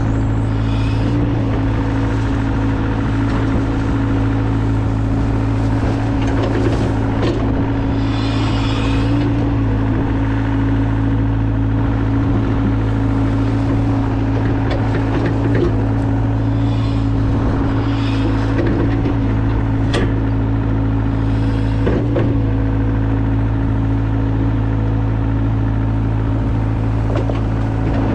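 Mini excavator's diesel engine running at a steady speed, with a few sharp knocks and short hissing bursts as it works.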